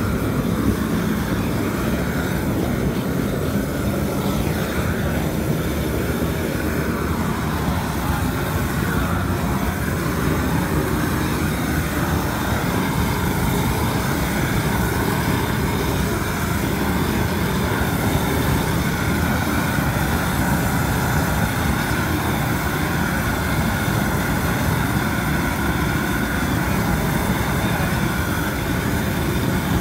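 Hand-held gas flame torch running with a steady, loud roar of burning gas as it singes the bristles off a slaughtered pig's carcass.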